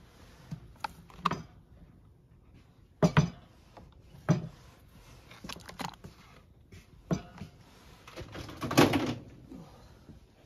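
Objects being handled on a shop shelf: scattered knocks and clatters a second or two apart, with a longer, louder clatter near the end.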